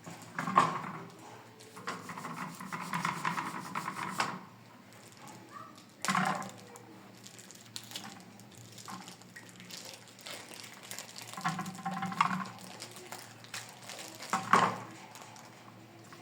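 Hand washing-up: water splashing and dishes clinking in several separate bursts.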